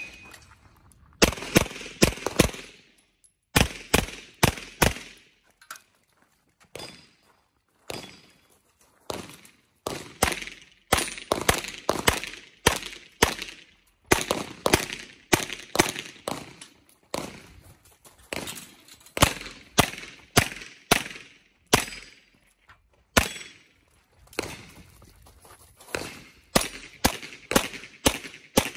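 Handgun shots fired in quick strings and pairs, dozens in all, with short pauses between groups as the shooter moves between positions on an IPSC course of fire. A short high beep from the shot timer's start signal comes right at the start.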